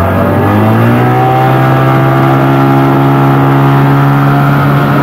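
Outboard motor on a long wooden boat speeding up. Its pitch rises over about the first second, then it runs steady at speed.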